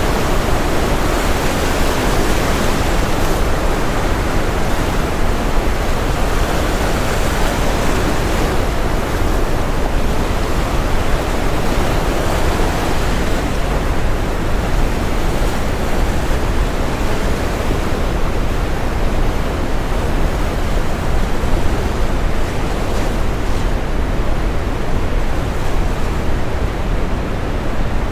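Steady brown noise mixed with the continuous wash of ocean surf, heaviest in the low end, with the hiss of the waves swelling and thinning slowly.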